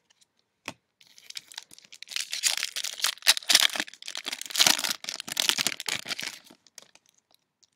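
A foil trading-card pack wrapper being torn open and crinkled by hand. It makes dense rustling and crackling for about six seconds, loudest in two spells in the middle.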